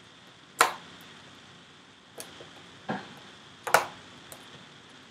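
Letter tiles clicking against a board as they are taken off and put on: four sharp clicks, the loudest about half a second in and near four seconds in.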